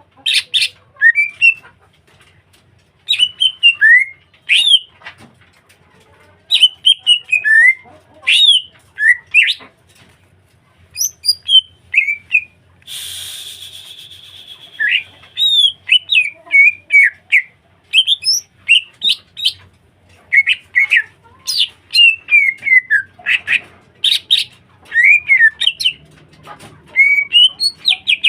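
Green leafbird (cucak hijau) singing energetically: a run of loud, varied whistled phrases with quick rising and falling glides, coming in bursts every second or two. About halfway through there is one harsh, hissing buzz lasting a second or two.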